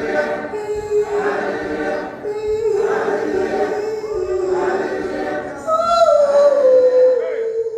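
Gospel choir singing long held notes, with one voice gliding down in pitch over the last two seconds.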